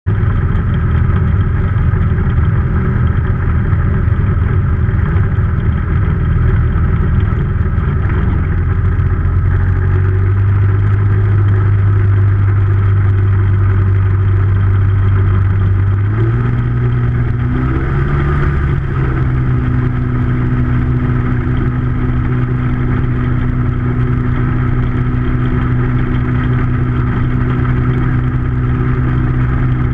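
Ultralight aircraft's pusher engine and propeller running, heard close up. The engine note steps up about halfway through, wavers briefly and then holds steady at the higher pitch.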